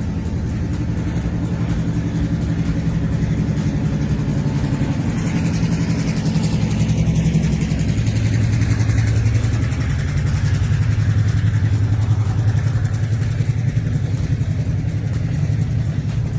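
A large engine running steadily with a rapid, even throb, its main note shifting lower about eight seconds in.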